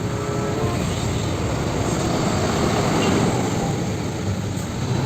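Steady, even engine-like rumble, as of a truck running, with a faint hum over it.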